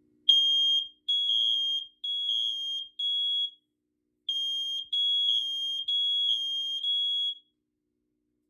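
Two interconnected hardwired smoke alarms sounding on test: a high-pitched beep, four long beeps, a short break, then four more before it stops.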